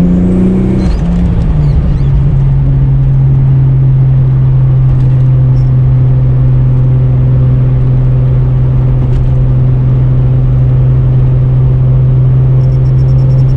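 Holden VL Turbo Commodore's turbocharged straight-six running under way. The revs fall about a second in, then it drones steadily at an even engine speed.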